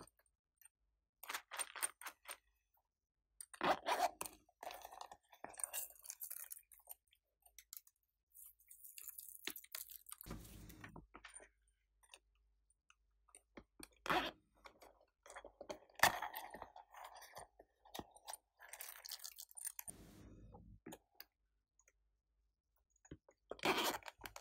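Soft silicone zip pouches being picked up, turned over and set down by hand, heard as scattered bursts of rustling and crinkling with short silences between. Near the end a pouch's zipper is taken in the fingers and pulled open.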